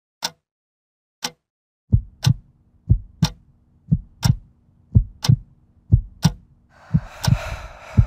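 Cinematic sound design: a sharp tick once a second, joined about two seconds in by a heartbeat-like double thump and a faint low hum, with a rising swell of noise building near the end.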